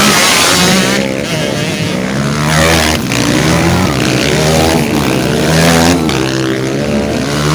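Dirt-bike engines revving hard as riders pull up a muddy climb, several bikes one after another; the pitch rises under throttle and drops back with each gear change, over and over.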